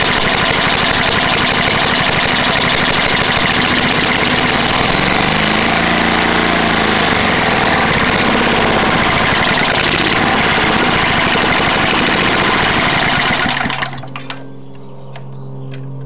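Tecumseh lawn mower engine running loud and rough, an old engine the owner calls worn out, with a bad head gasket, carburettor and piston and burning a lot of oil. The engine sound cuts off suddenly near the end, leaving a low steady hum.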